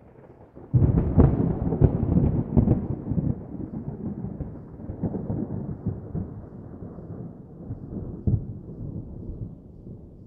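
Fireworks sound effect: a sudden loud boom about a second in, then a run of cracks and pops over a low rumble that slowly dies away.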